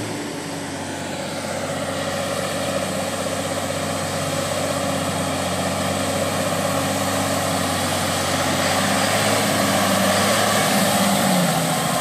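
Valtra T191 tractor's six-cylinder diesel engine running steadily as it works through a flooded paddy field, growing louder as it comes closer, with its note dipping slightly near the end.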